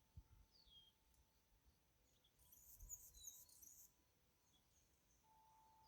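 Faint chirps from small songbirds at feeders, a few quick downward-sliding notes, with a short spell of high twittering about two and a half seconds in.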